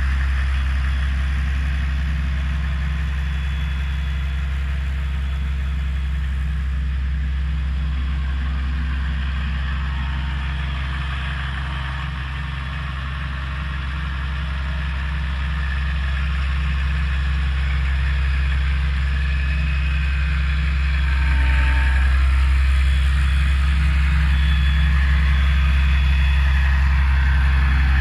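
Diesel engine of a 1988 Hymac 181 crawler excavator running steadily. It eases off slightly about halfway through and gets a little louder for the last quarter.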